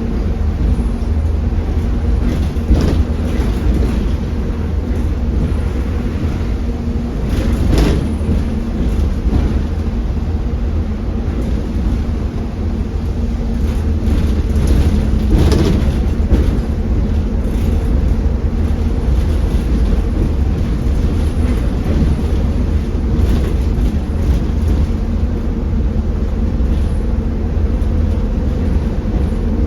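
Optare Solo M900 bus heard from inside the cabin while under way: steady diesel engine running with heavy low road rumble. A few short bursts of noise stand out about 3, 8 and 15 seconds in.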